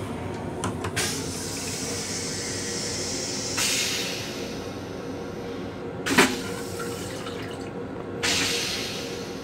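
Train restroom toilet flushing: water rushes through the stainless-steel bowl in surges, with a sharp clunk about six seconds in. A steady train hum runs underneath.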